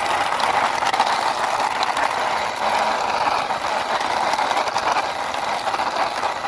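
Plastic toy car pushed by hand along rough stone, its plastic wheels rolling with a steady grinding rattle of many fine ticks.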